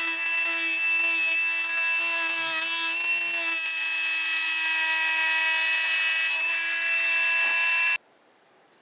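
Small electric power tool running with a steady whine, its tone shifting slightly partway through; it cuts off abruptly near the end.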